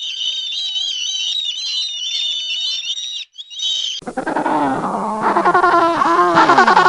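Animal calls from two recordings. First come high, rapid chirping calls for about three and a half seconds. After an abrupt cut about four seconds in, a different, louder animal gives lower cries that waver up and down in pitch.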